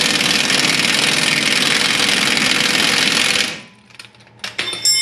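Impact wrench hammering steadily on a stuck, rusted lower control arm nut, stopping after about three and a half seconds. Near the end come a few sharp metallic clinks that ring.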